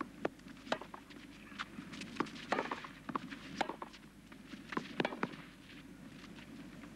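Tennis rally on a clay court: racket strikes on the ball, a sharp knock about every second or so, with softer scuffs of players' shoes on the clay in between, over a faint crowd murmur.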